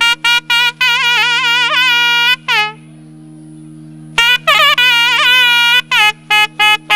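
A nadaswaram from a naiyandi melam folk band plays quick, bending staccato phrases over a steady drone. It pauses for about a second and a half midway while the drone holds, then resumes.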